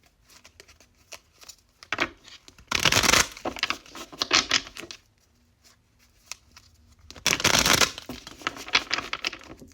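Tarot cards being shuffled: papery flicks and rustling, with two louder riffling bursts, one about three seconds in and one near eight seconds.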